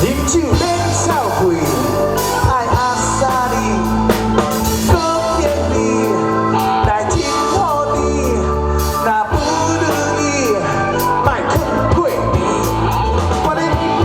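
Rock band playing with a singer: vocals over electric guitar, bass and drums, loud and steady.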